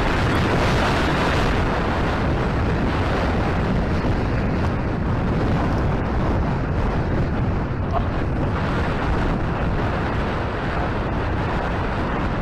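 Wind buffeting the microphone, a steady loud rushing rumble.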